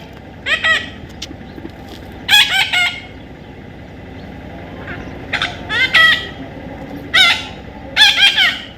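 A baby parrot calling in a series of short squawks, about six bursts a second or two apart, each bending in pitch.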